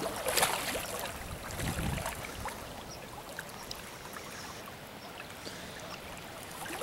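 Steady rush of river water, with a few faint ticks and a brief low swell about two seconds in.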